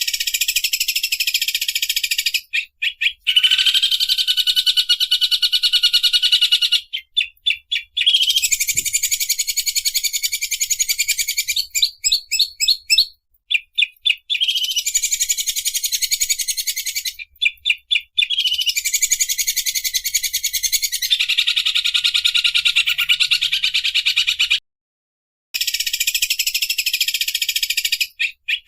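Greater green leafbird (cucak ijo) singing a harsh, very rapid rattling trill likened to a sewing machine, in loud phrases of a few seconds each with short breaks and stuttering pauses between them.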